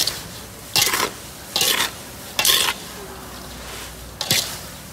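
A spatula scraping and stirring food in a pan of hot oil: five short scrapes about a second apart, with a longer pause before the last, over a steady frying sizzle.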